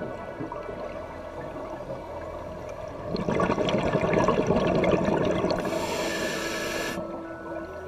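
Scuba diver breathing through a regulator, heard underwater: a rush of exhaled bubbles about three seconds in, lasting a couple of seconds, then a short hiss of the regulator on the next breath, over a low steady underwater rumble.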